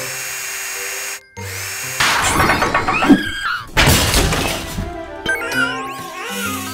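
Cartoon background music with sound effects: a held chord, then noisy swells and a loud crash-like burst about four seconds in, followed by a melody.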